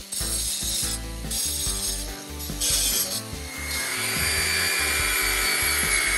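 Small cordless angle grinders grinding rust and old spacer steel off a steel chainplate. The grinding comes and goes in short passes at first, then from about four seconds a grinder runs steadily with a high whine.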